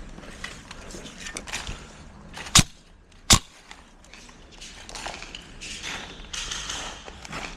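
Two sharp cracks about three-quarters of a second apart, the loudest sounds here, amid rustling and handling of gear.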